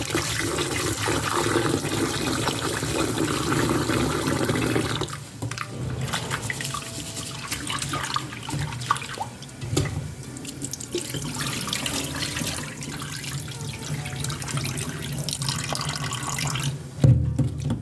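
Kitchen tap running while rice is washed in a pot, the water splashing and swirling. The running water is heaviest for about the first five seconds, then lighter with small clicks and knocks. A louder knock comes near the end.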